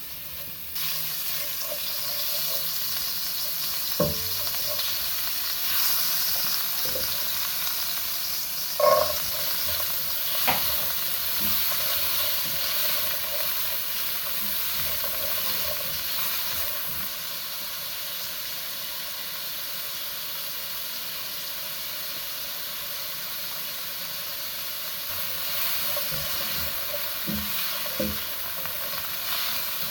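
Food sizzling steadily in a hot pan, with a few sharp clinks of a utensil against the pan, the loudest about a third of the way in.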